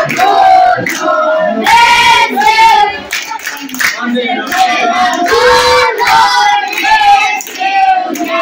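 A group of women and children singing together in unison, a birthday song, in long held notes.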